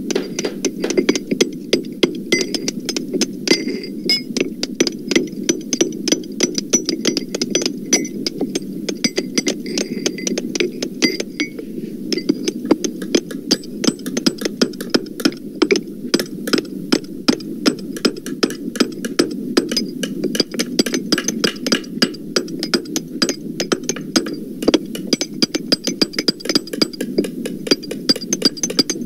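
Hammer blows, pitched down to sound deeper, in a steady, irregular stream of several overlapping knocks a second with a light high ring above them.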